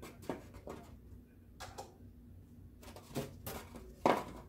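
Handling noise as long white craft boards are picked up and moved: scattered light knocks, taps and scrapes, with one louder knock about four seconds in.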